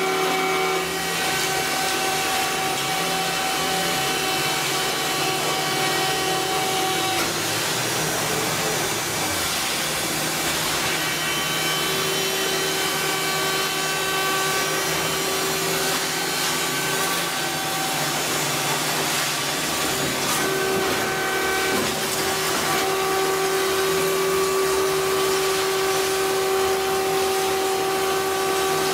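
Hydraulic pump of a scrap-metal baler running under load as the press compacts scrap metal into a bale: a steady whine whose tone shifts a few times as the press moves through its stroke.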